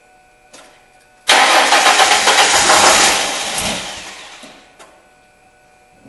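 Car engine cranked on a shot of ether (starting fluid) sprayed into the intake: it catches suddenly about a second in, runs rough for a couple of seconds, then fades and dies as the ether burns off. The engine has spark and injector pulse but no fuel pressure, so it will only run on the starting fluid.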